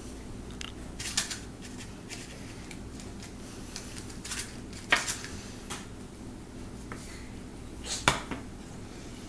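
Metal spoons scraping and clinking against a mixing bowl and a metal cupcake tin as cake batter is spooned into paper liners. A few sharper clinks stand out, the loudest about five and eight seconds in.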